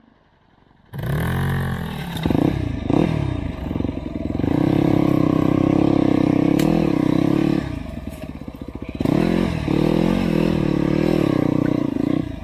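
Dirt bike engine being ridden under changing throttle, its pitch rising and falling as it revs. It starts about a second in, eases off for a moment about two-thirds of the way through, then picks up again.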